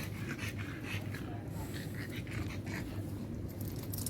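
Dogs close to the microphone, with short scratchy and rustling noises over a steady low hum.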